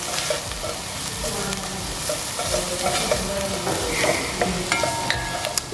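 Sliced red onions sizzling in butter and oil in a pot, stirred and scraped around the pot's base with a wooden spatula. They are being fried until soft.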